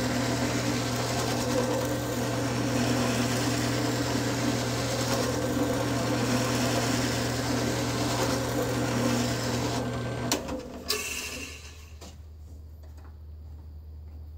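Drill press motor running with a small sanding drum in its chuck, sanding the edge of a plywood block pushed against the drum from the side. About ten seconds in, the motor is switched off and spins down, and a few light clicks follow.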